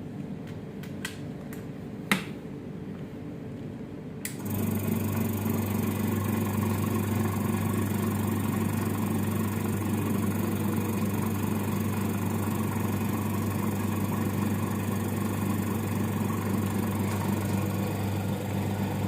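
A few light clicks, one sharper about two seconds in, then about four seconds in the vacuum pump of a vacuum leak tester starts and runs steadily with a low hum, pulling vacuum on the test chamber.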